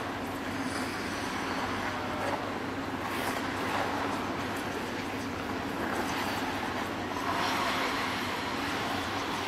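Figure skate blades scraping and carving the ice in a few swells, about three seconds in, about six seconds in and again near the end, over a steady low hum.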